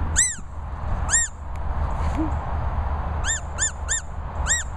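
Rubber squeaky dog toy squeezed in short squeaks, each rising and falling in pitch: one, another about a second later, a quick run of three, then one more near the end.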